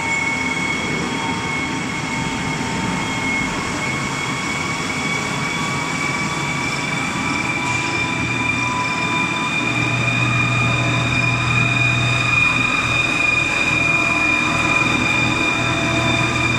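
Paper wax coating machine running: a steady high whine from its drives and rollers, creeping slightly up in pitch as the line speed is raised, with a low hum that comes in about halfway.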